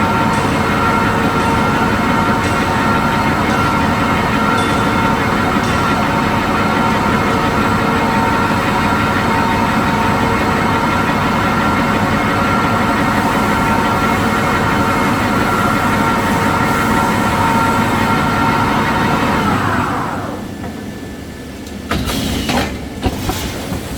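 Toilet tissue paper converting line machinery running steadily with a constant whine, then spinning down with falling pitch about twenty seconds in. A few sharp knocks follow near the end.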